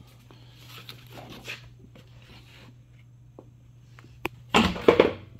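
Parts and a cardboard box being handled and shifted on a shop cart: faint rustling, a sharp click about four seconds in, then a short burst of loud rustling and clatter near the end.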